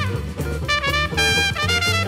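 Jazzy background music: a lead melody of short notes over a steady bass line.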